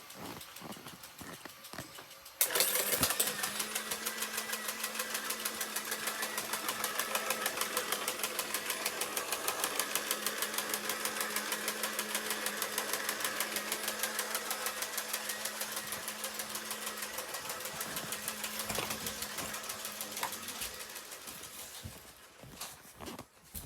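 Helicopter sound played as an alarm: a rapid, even chopping over a steady low hum. It starts suddenly about two seconds in and fades out near the end.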